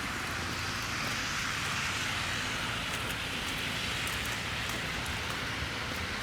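Steady, even outdoor hiss, with a few faint ticks.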